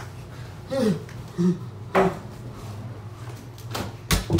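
Three short vocal grunts from a man in the first two seconds, the first falling in pitch. Near the end, a bathroom door slams shut with a heavy thud, the loudest sound.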